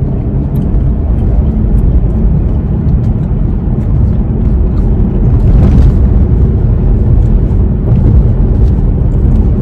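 Steady low rumble of a car's engine and road noise inside the cabin of a moving car.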